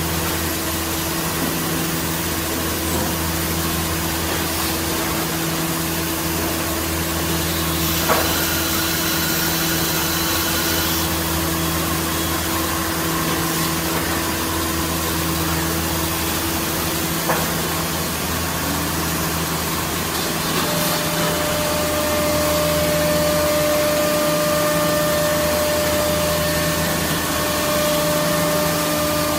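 CNC router spindle running with a steady tone while routing grooves in a wood panel, over the noise of its dust extraction. There is a sharp click about 8 s in and another around 17 s in, and a second, higher tone joins about 21 s in as the sound grows slightly louder.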